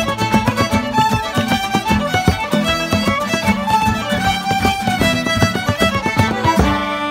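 Several fiddles and an acoustic guitar playing a traditional tune together, the guitar strummed in a steady rhythm under the fiddle melody. Near the end they land on a final chord and hold it.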